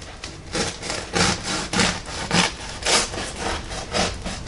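Bread knife sawing back and forth through the crust of a 2-pound bread-machine loaf: a steady run of scratchy scraping strokes, about one every half second.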